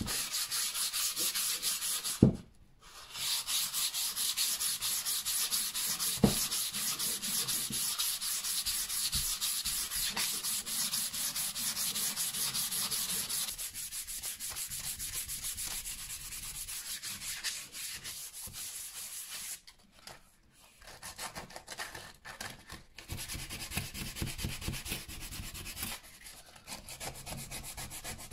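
120-grit sandpaper rubbed by hand in quick back-and-forth strokes along a wooden axe handle, sanding off dirt and grime with the grain. Two sharp knocks about two and six seconds in; the strokes turn quieter and more broken in the second half.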